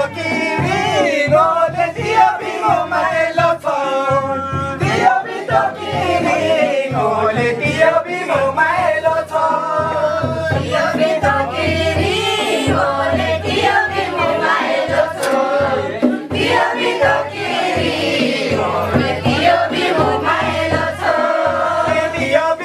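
Music: a song with several singing voices over a steady beat.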